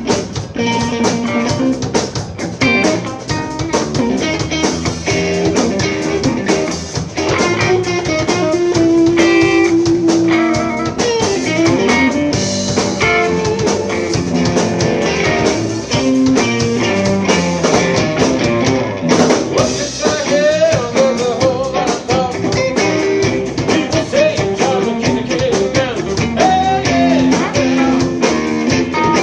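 Live blues-rock band playing: electric guitars with a lead line of sustained, bending notes over bass guitar and a drum kit.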